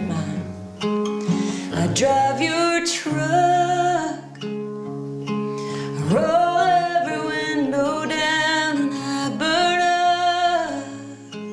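A woman singing a slow country ballad while accompanying herself on acoustic guitar, with several long held notes.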